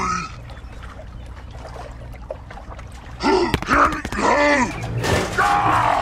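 A gruff voice groaning and grunting several times from about three seconds in, as if straining, with a higher cry near the end. The first half is quieter, with a faint hiss.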